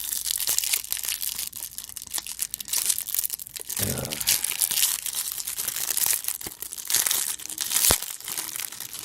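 Hockey card pack wrappers being torn open and crinkled by hand, a continuous crackly rustle with one sharp snap near the end.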